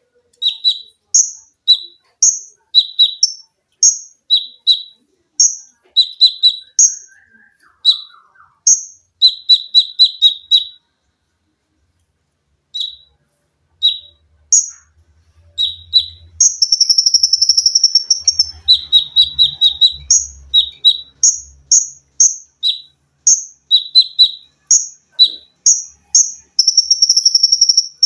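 Konin songbird singing: short, sharp high notes repeated in quick succession, alternating between two pitches, with a pause about halfway. Twice, once past the middle and again near the end, the song breaks into a fast, rattling 'sewing machine' trill lasting a couple of seconds.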